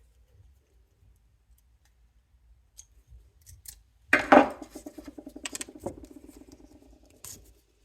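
Copper wire pulled through a hand-held Coppermine wire stripper, its blade slitting the insulation. A few light clicks come first. About four seconds in there is a sharp start, then a rapid rattle that lasts about three seconds and fades, with a couple of clicks along the way.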